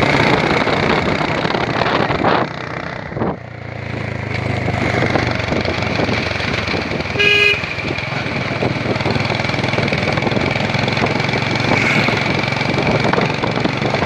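Motorcycle and scooter engines running steadily while riding at speed, with heavy road and wind noise. A short horn toot sounds about halfway through.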